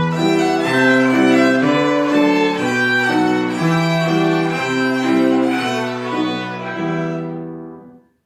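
A trio of violins playing the closing phrase of a piece in sustained, changing notes; the last note dies away about eight seconds in.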